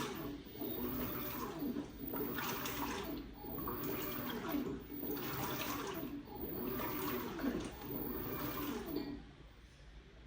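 LG WT16WV6 top-loading washing machine agitating in the rinse cycle: water sloshing in surges about every one and a half seconds as the wash action reverses, stopping about nine seconds in.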